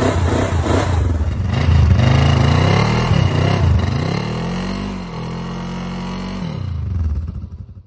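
Kawasaki KLE 500's parallel-twin engine revved hard while the rear tyre spins on grass in a burnout. The revs climb and fall several times, hold steady for a moment, then drop away near the end.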